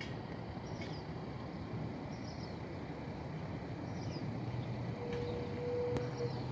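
Distant, steady low rumble of a McDonnell Douglas MD-11F trijet freighter passing high overhead. Short descending bird chirps repeat about every second and a half, and a brief steady tone sounds near the end.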